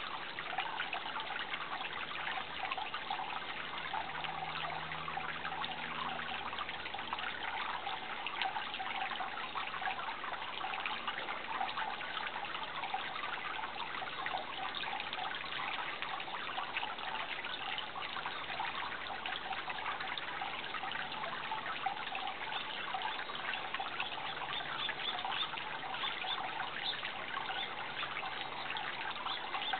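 Running water trickling steadily, an even babbling with no breaks.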